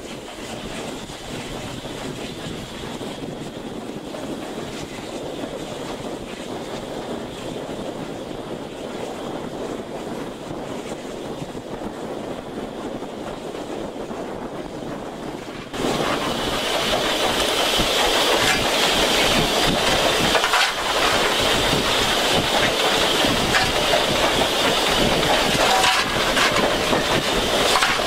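GWR King Class 4-6-0 steam locomotive running at speed, heard from the footplate: wheels clattering over the rails with wind rushing past. About halfway through the sound jumps suddenly louder, with a strong steam hiss and cab noise.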